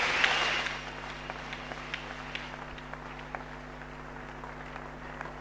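Large indoor crowd applauding, loudest in the first second, then dying down to a faint scatter of individual claps.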